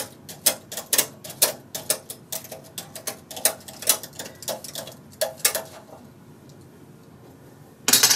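Light metallic clicks of knitting-machine needles against a garter bar as the bar is worked along the needle bed, about three a second, stopping about six seconds in. A short cluster of clicks comes near the end.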